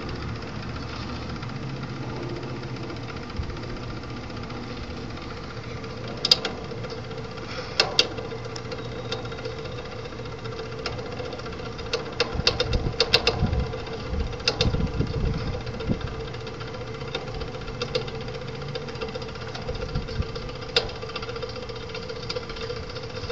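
Viper TC3 chain-drive slide gate operator running, its motor humming steadily as it drives the metal gate along its chain. Sharp metallic clanks and rattles come through at irregular moments, thickest around the middle.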